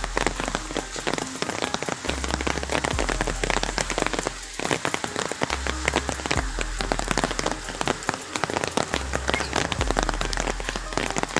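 Rain that has just arrived, falling as a dense, steady stream of sharp drop impacts, with a low rumble that comes and goes every couple of seconds.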